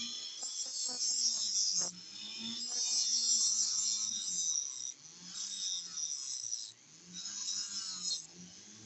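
Handheld rotary tool with a small red cut-off disc grinding through the metal tabs of a small sheet-metal base. It gives a hissing grind in four spells with short breaks between them, and the motor's hum dips and rises in pitch as the disc is pressed into the cut.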